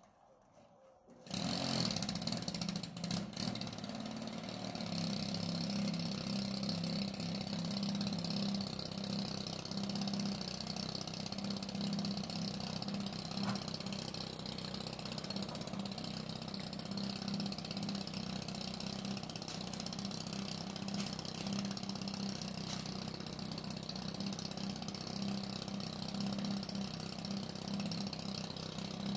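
Chainsaw engine catching about a second in, then running steadily at idle.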